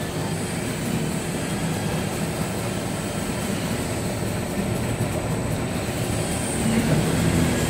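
Wide belt sander running with a steady mechanical drone: a low rumble with a faint, thin high whine above it.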